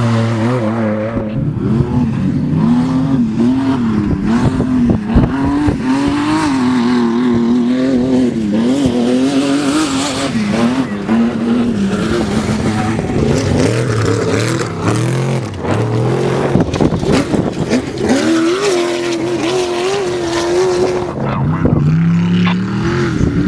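Off-road race vehicle's engine running hard, its pitch rising and falling again and again, over a steady rough noisy hiss.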